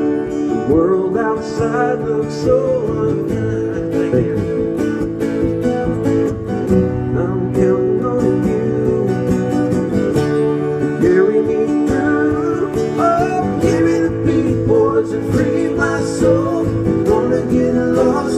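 Two steel-string acoustic guitars played live together, strumming chords with picked melody notes, in a country-rock style.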